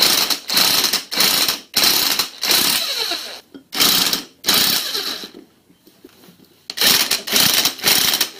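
Porter-Cable cordless driver spinning a socket in short bursts, running a connecting rod cap's fasteners down to lightly snug before final torquing. About a dozen quick runs, with a pause of about a second and a half past the middle.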